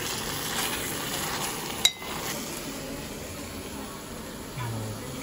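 Ghee roast chicken in gravy sizzling in a small heated metal kadhai while a ladle stirs and scoops it. There is one sharp metal clink about two seconds in, and after it the sizzle is quieter.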